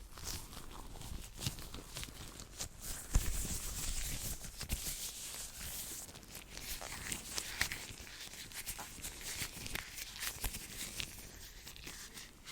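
Hands rubbing, brushing and tapping together close to a very sensitive microphone: a continuous dry swishing dotted with quick clicks, and a single thump about three seconds in.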